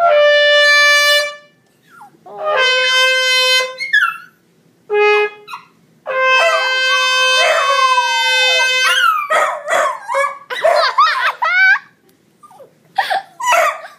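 A trumpet plays a series of held notes, the longest from about six to nine seconds in. Two dogs then answer with wavering howls and yips, set off by the trumpet's high notes, and a further burst of howling comes near the end.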